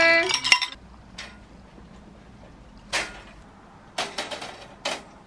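Folding clothes-drying rack being unfolded: several separate sharp clacks and rattles as its metal arms and bars are swung out and set in place.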